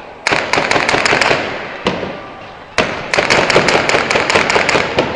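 Automatic gunfire: two long rapid bursts of shots with a single shot between them, live rounds fired at protesters.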